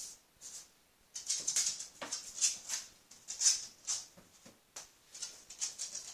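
French bulldog breathing hard through its nose and mouth in short, hissy snuffles, several a second in irregular bursts, starting after a brief lull about a second in.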